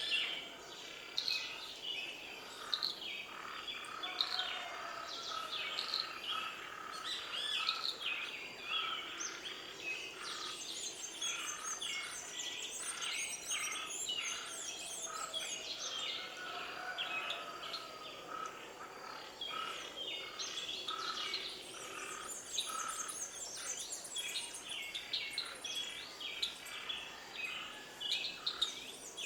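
Many birds chirping and calling at once, a dense chorus of short overlapping calls, with higher, rapid trills joining in midway and again near the end.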